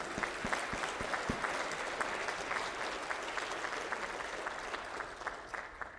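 Congregation applauding: many hands clapping together, fading out near the end.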